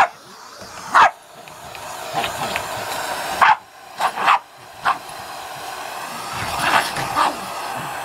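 A dog barks sharply at a running vacuum cleaner, about eight barks in ones and quick clusters. Under the barking the vacuum's motor gives a steady whooshing hum that grows slowly louder as the nozzle is pushed at the crate.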